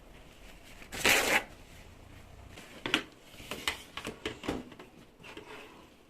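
Groceries and their packaging being handled: a loud rustle about a second in, followed by a run of light clicks and shorter rustles.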